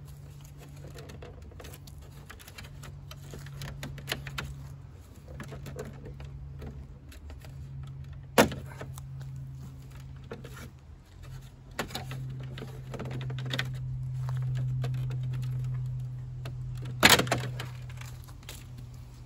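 Plastic clips and trim of a car's front grille clicking and knocking as it is worked loose and pulled off, with two sharp snaps, one about eight seconds in and a louder one near the end. A steady low hum runs underneath.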